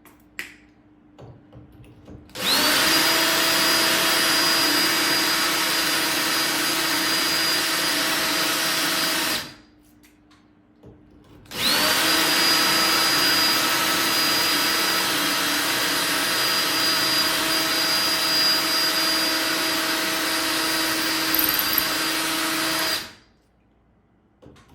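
Electric drill turning a diamond drill bit into porcelain tile, in two long runs of about seven and eleven seconds with a pause between; the motor's whine climbs to speed at the start of each run and stops abruptly at the end.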